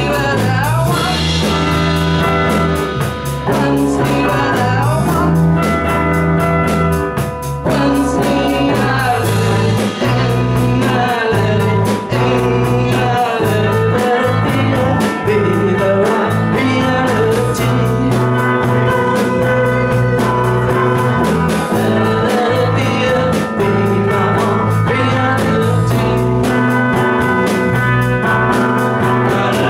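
Psychedelic rock band playing live, with electric guitars and a drum kit under sung vocals.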